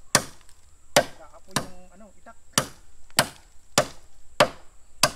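Bolo knife (itak) chopping into lawiswis bamboo stems: sharp strikes at a steady pace of roughly one every half second or so, about seven in all.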